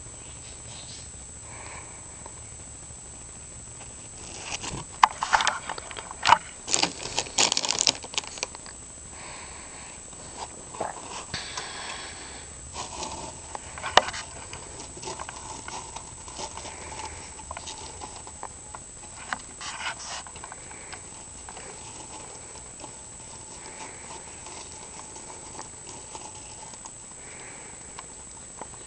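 Irregular rustling and clicking from a teddy bear hamster being handled and moved from a bed sheet into its cage. The noise is densest about five to eight seconds in, with one sharp click about fourteen seconds in.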